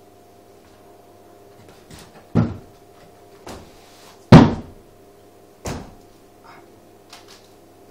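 A person climbing from a wooden chair onto a door frame and up through a loft hatch: four thumps and knocks, the loudest a little past four seconds in.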